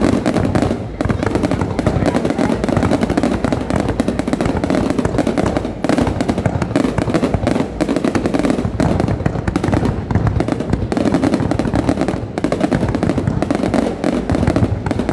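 Fireworks display going off continuously, a dense run of rapid bangs and crackling with no break.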